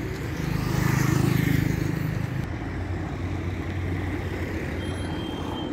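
Street traffic: a motor vehicle's engine hum swells and passes about a second in, then a steadier low engine hum carries on.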